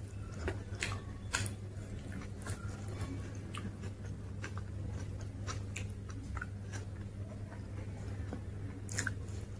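Close-up eating sounds: a person chewing and biting pieces of dosa dipped in chutney, with irregular wet clicks and crisp crunches. A steady low hum runs underneath.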